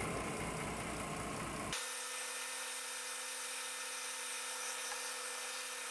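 Mercedes GLK 350's 3.5-litre V6 idling with the hood open. About two seconds in, the low rumble cuts off suddenly, leaving a steady whine over a hiss.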